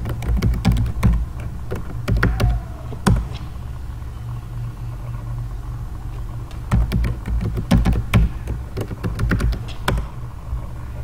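Computer keyboard keystrokes as a password is typed: a few keystrokes in the first three seconds, then a pause, then a quick run of keystrokes from about seven to ten seconds in. A steady low hum runs underneath.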